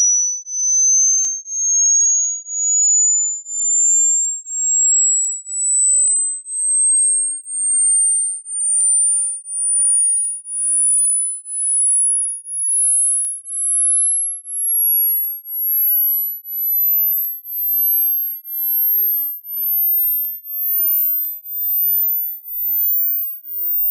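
A pure electronic test tone gliding slowly upward in small steps from a high whistle to a very high, thin pitch, swelling and fading about once a second.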